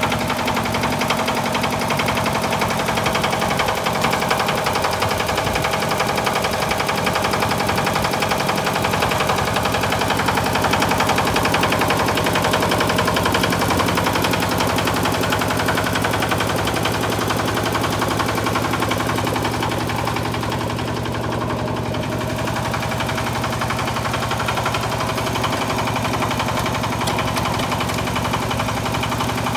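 Yanmar YC90-G walk-behind tiller's 9 hp single-cylinder diesel engine running steadily under load, driving its spinning rotary tines.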